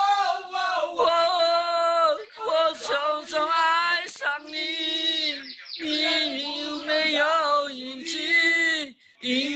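A single voice singing a melody in long, wavering held notes, with short breaks between phrases and a brief stop just before the end.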